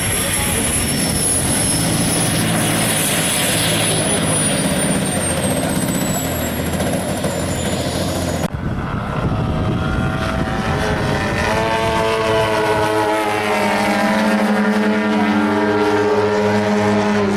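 A radio-controlled model jet's engine runs with a high whine whose pitch slowly falls as the jet comes in to land. About eight and a half seconds in, the sound cuts to the steady drone of propeller-driven model planes' engines overhead, rising in pitch and then holding.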